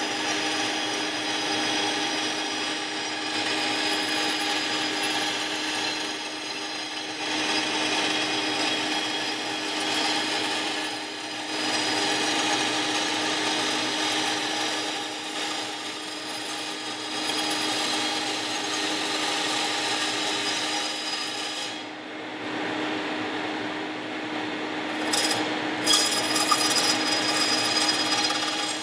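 Benchtop band saw running with a steady hum, its blade cutting an aluminium rear spar cap with a rasping hiss. Near the end a few sharp, louder scrapes come through.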